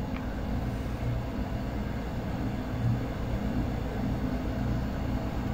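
A steady low hum with a rumble beneath it, like a machine running in the background.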